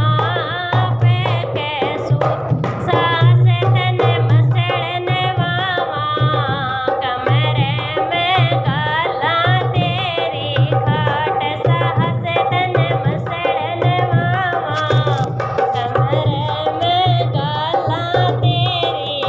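Haryanvi folk music: a hand-drum rhythm with deep, repeated strokes under a wavering melody that carries on without a break.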